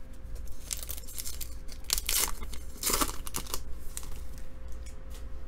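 A plastic trading-card pack wrapper being torn open and crinkled, in several short rustling bursts.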